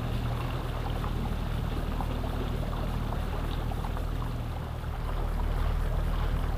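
Motorboat engine running steadily with a low hum as the boat cruises, with water rushing and splashing along the hull. It gets a little louder about five seconds in.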